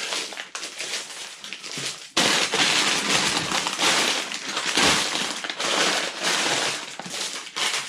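Rustling and crinkling of packaging being handled in a box of Lego parts bags and instruction books: irregular scrunching bursts, suddenly louder about two seconds in.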